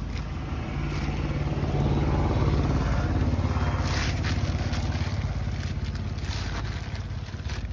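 Thin plastic bag crinkling and rustling as cut fish pieces are dropped into it and the bag is lifted and knotted. Underneath, a motor engine runs steadily with a low hum that rises slightly about a second in.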